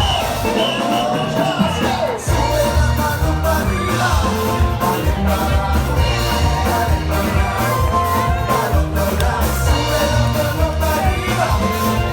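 Loud music with a steady, driving beat and heavy bass, with singing over it.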